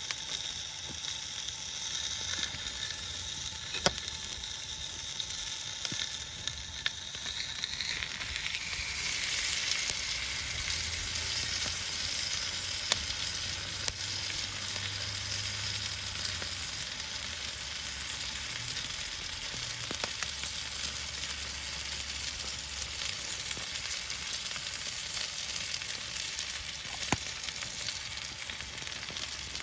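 Food frying in a pan, a steady sizzle with a few sharp pops.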